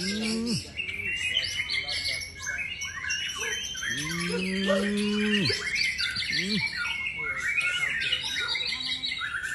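White-rumped shama singing a rich, continuous song of fast whistles and trills. A low, drawn-out call sounds underneath a few times, the longest about four seconds in and lasting over a second.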